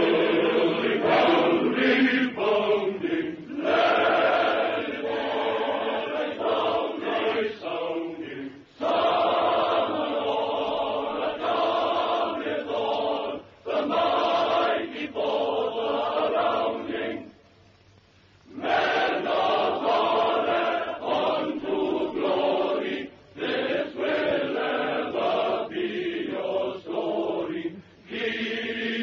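A chorus of men's voices chanting in phrases, with short breaks between them and a longer pause of about a second and a half about two-thirds of the way through.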